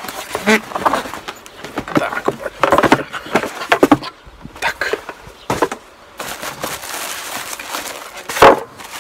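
Cardboard box and packaging of a VR headset being handled: cardboard flaps and inserts sliding, scraping and tapping in quick irregular strokes, then the plastic-wrapped headset lifted out. A single loud bump near the end.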